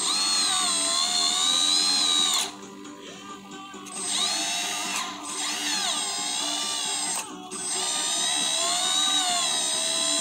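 Small electric hydraulic pump of a radio-controlled model excavator whining as the valves work the boom and arm, its pitch dipping and rising with the load. It eases off for about a second and a half about two and a half seconds in, and briefly again about seven seconds in.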